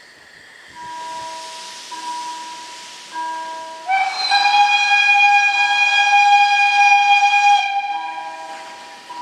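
Steam whistle of the Saxon IV K narrow-gauge Mallet tank locomotive No. 176, one long blast of nearly four seconds starting about four seconds in, rising slightly in pitch as it opens. Under it a level crossing's warning signal rings a repeating tone about once a second, with steam hissing.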